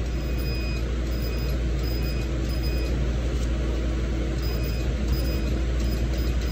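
Cosmetic skin laser unit running with a steady low machine hum, and short high beeps sounding irregularly while the handpiece is fired against the skin.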